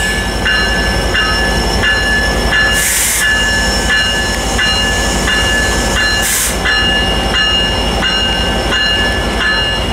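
EMD F59PHI diesel locomotive running as it eases up to couple to a passenger car, its bell ringing steadily about once every three-quarters of a second. Two short bursts of air hiss come through, about three seconds in and again about six seconds in.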